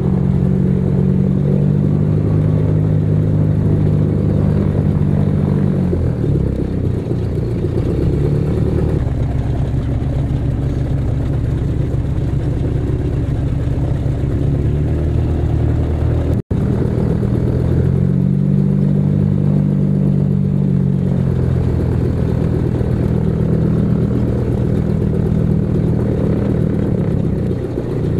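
The twin de Havilland Gipsy Major piston engines of a DH84 Dragon biplane, heard loud from inside the passenger cabin. The engine note changes several times, and there is a split-second gap about halfway through.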